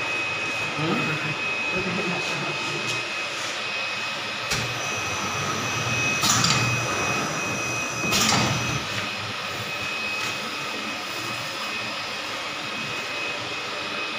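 20x30 flatbed screen printing machine running a print cycle: a steady mechanical hum with a thin, high whine, and three short hissing bursts a couple of seconds apart as the screen frame and squeegee move.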